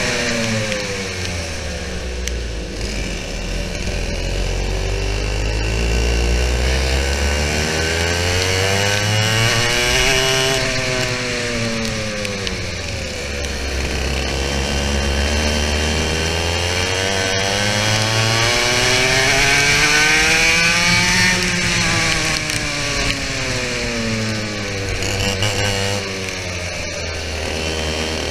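Two-stroke 100cc TKM BT82 kart engine racing on track: the revs drop sharply three times, about a second in, about 12 seconds in and again near the end, and climb steadily for several seconds between, as the kart brakes for corners and accelerates out of them.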